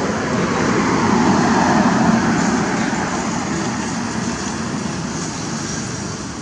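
A road vehicle passing: a steady rumble that swells about a second or two in, then slowly fades.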